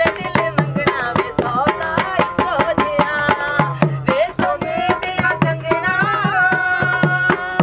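Instrumental passage of a Punjabi folk song: a fast hand-drum beat with deep strokes, under a wavering melody line that holds one long note near the end.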